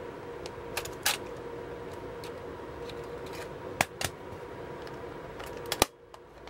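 Plastic clicks from the lid and latch of a Sony MZ-NE410 MiniDisc Walkman being opened and snapped shut by hand. There is a sharp click about a second in, a pair of clicks around four seconds, and the loudest double snap near the end.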